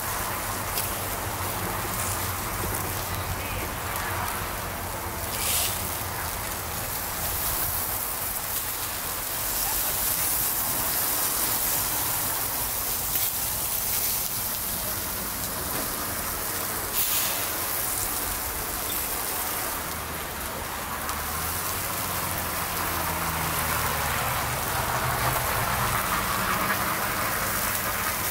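Pork barbecue skewers sizzling over a charcoal grill: a steady hiss with a couple of sharp pops.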